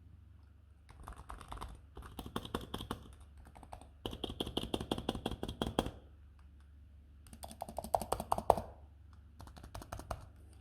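Typing on a Razer Huntsman V2 TKL optical-switch keyboard: five bursts of rapid key clicks with short pauses between them.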